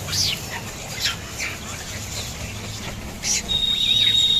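Birds chirping: a few short, high, falling chirps, then a loud, steady, high whistled note that begins about three and a half seconds in.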